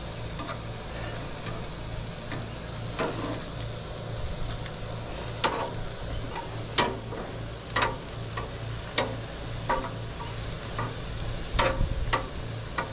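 Steaks and bratwurst sizzling on a hot gas grill while being turned with metal tongs, with scattered sharp clicks of the tongs against the meat and grate.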